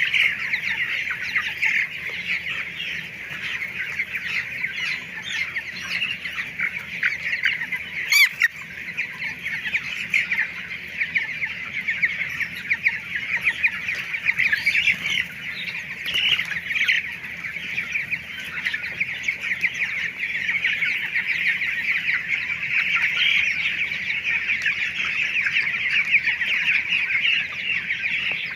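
A large flock of poultry-farm chickens calling together in a dense, continuous chorus of high cheeping, with a single sharp knock about eight seconds in.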